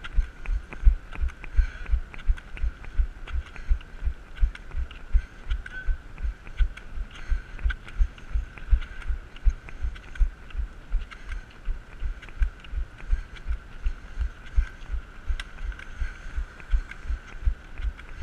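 Steady rhythm of low thumps, about three a second, from the strides of a runner on crutches jolting the camera as he moves.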